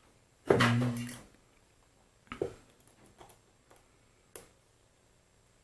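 Small steel parts of a mini-lathe topslide being handled and fitted: a louder sliding or rubbing sound with a low hum about half a second in, then a few light clicks and knocks.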